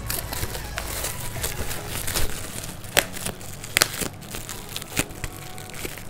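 Plastic packaging crinkling and rustling as it is handled and unwrapped, with a few sharp crackles about three seconds in, near four seconds and near five seconds.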